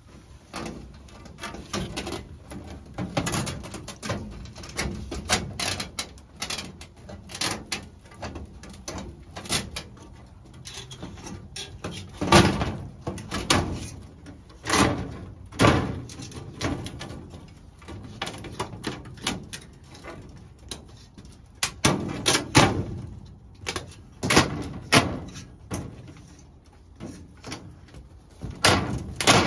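Twin-wall plastic roof panels being pushed and slid into a greenhouse's metal frame: irregular scraping, rattling and knocking, with a few sharper bangs around the middle and near the end.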